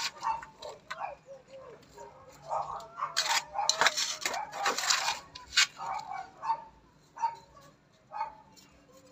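Metal hand trowel scooping and scraping potting soil in a foil tray, with scrapes and clinks bunched in the middle. A wavering pitched whine sounds through part of that stretch.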